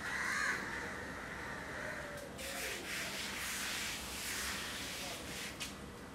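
Rolling pin working a thick stack of chapati dough: two long rubbing, sweeping strokes, with a short louder sound right at the start.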